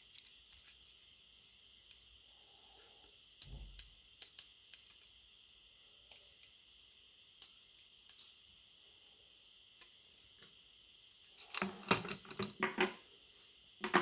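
Small scattered clicks and taps of tweezers and plastic and metal phone parts being handled, with a louder run of rattling clicks near the end and a sharp clack as the tweezers and screwdriver are set down on the table.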